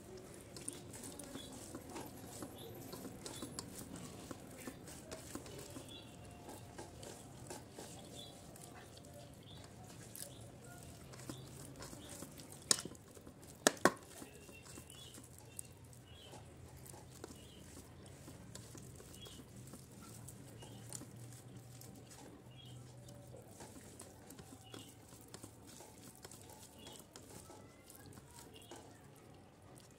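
Faint eating sounds: fingers mixing rice and curry on a steel plate, and soft chewing. Two sharp clicks close together come about 13 seconds in.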